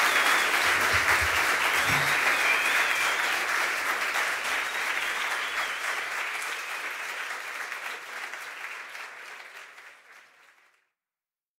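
Audience applauding after a live song, the clapping fading out and then stopping near the end.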